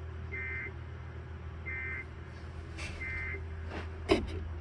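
Emergency Alert System end-of-message signal: three short, identical bursts of SAME digital data tones, about 1.3 s apart, over a steady low hum. A sudden knock about four seconds in is the loudest sound.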